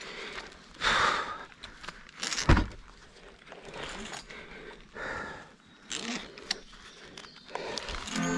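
A climber working up a rope with a frog ascending system: irregular rustling and clinking of rope and metal climbing hardware with heavy breathing, and one sharp knock about two and a half seconds in.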